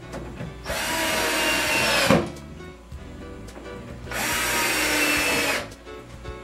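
Cordless drill driving 1-inch wood screws into the cabinet panels: two runs of about a second and a half each, the motor whine steady, then dropping in pitch as each screw drives home. Background music plays under it.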